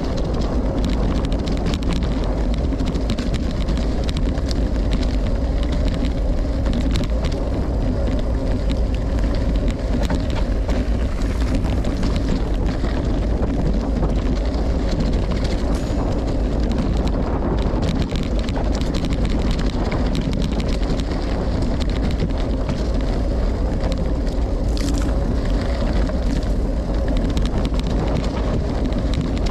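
Wind rumbling on the microphone of a bike-mounted camera while a Specialized Diverge gravel bike on Maxxis Rambler tyres rolls over rough ground. A steady rush of tyre noise is scattered with small clicks and rattles.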